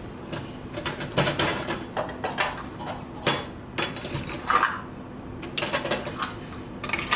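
Rose-gold metal kitchen utensils clinking and rattling as they are set into a copper wire utensil holder: a run of light, irregular clicks and knocks.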